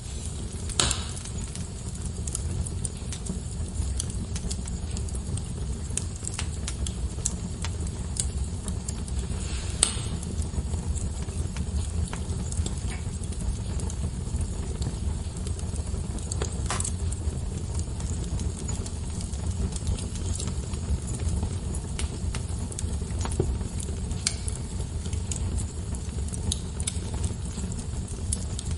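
Wood fire burning in a fireplace: a steady low rumble of the flames, with scattered crackles and pops, a few louder snaps among them.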